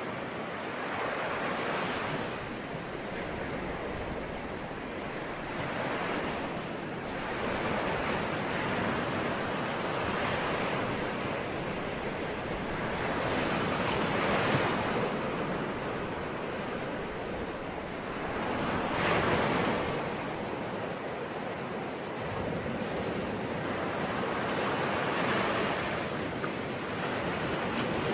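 Ocean waves breaking and washing on a shore, swelling and receding every few seconds, with a couple of larger breakers partway through.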